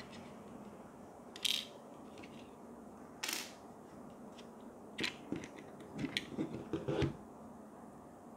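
Small plastic clicks and scrapes of a multi-connector's adapter tips being worked out of their plastic holder. There are single sharp clicks about a second and a half in and again about three seconds in, then a quicker run of clicks and rattles between about five and seven seconds.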